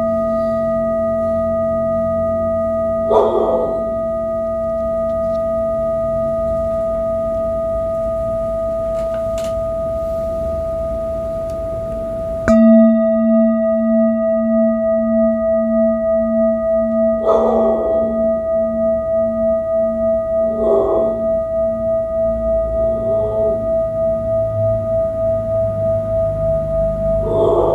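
Large metal singing bowl ringing with a long sustained tone and several higher overtones. About halfway through, it jumps louder and the low tone starts pulsing in an even wobble about twice a second. A few short soft noises sit over the ringing.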